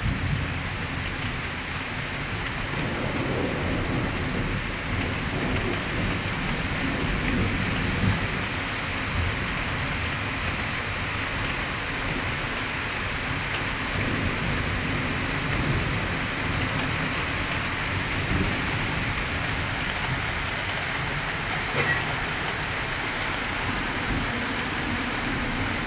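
Heavy thunderstorm rain falling steadily on surfaces, with thunder rolling and rumbling low underneath, swelling and fading.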